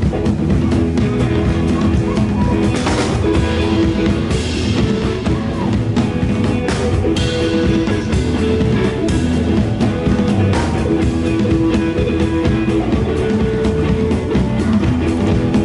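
Live band playing an instrumental passage, with guitar and drum kit and held notes over a steady beat.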